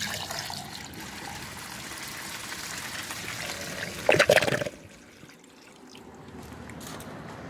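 Miniature clay toilet flushing: water rushing and trickling through the small bowl for about four and a half seconds, with a louder gush just after four seconds before the flow cuts off suddenly.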